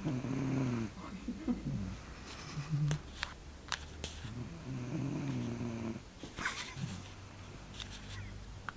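A sleeping person snoring: slow, low, rattling snores, the strongest near the start and again past the middle, with a few short clicks between.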